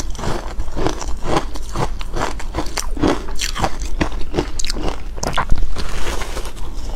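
Close-miked crunching of ice being bitten and chewed: a quick run of irregular crunches, with several sharper, brighter cracks a few seconds in.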